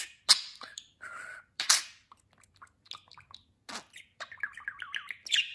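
Budgerigar chattering: a few sharp, loud clicks and short squawks, scattered small clicks, then a quick warbling run of chirps near the end.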